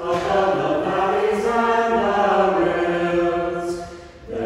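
Choir singing a slow chant in long held notes, with a brief dip near the end before the next phrase starts.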